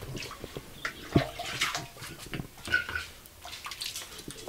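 Water splashing and plastic cups and a jug clattering as they are rinsed by hand in a wash basin, with one sharp knock about a second in.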